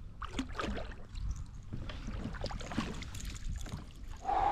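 A hooked smallmouth bass splashing at the surface beside a kayak and being scooped into a landing net, with irregular splashes and water sloshing. Near the end a loud held tone slides down in pitch.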